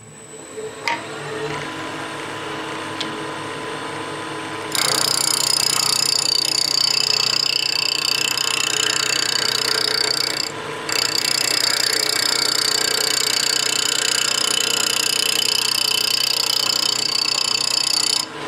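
Wood lathe motor running with an off-center blank spinning, then, about five seconds in, a turning tool cutting the spinning wood: a loud, steady shaving hiss that breaks off briefly around the middle and stops near the end.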